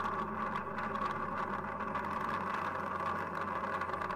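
Steady, unbroken rumble of a SpaceX Falcon 9 rocket's first-stage engines under full thrust during ascent, heard through the launch broadcast feed.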